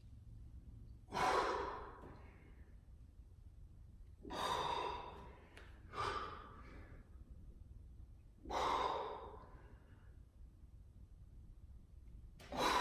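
A man's hard, forceful exhalations, about five heavy breaths a few seconds apart, each fading out over about a second: breathing out with the effort of each push-up rep on dumbbells.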